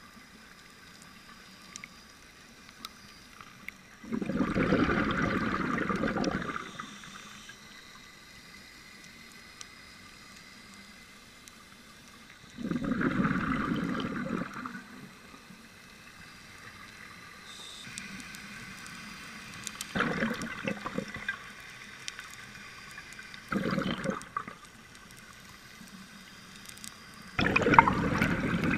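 Scuba diver's exhaled breath bubbling out of the regulator underwater, in five gurgling bursts of a second or two each, several seconds apart, with a faint watery hiss between them.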